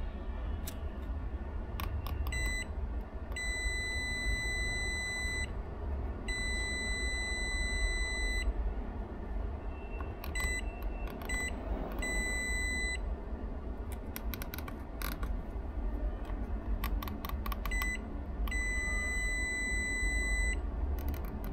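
Digital multimeter's continuity beeper giving a series of steady high beeps, several lasting about two seconds, each time the probes touch two points joined on the ECU circuit board. Sharp clicks of the probe tips on the board come in between.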